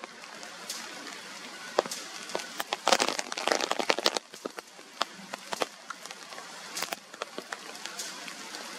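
Rain falling, with many sharp raindrop hits ticking on nearby surfaces, thickest about three to four seconds in.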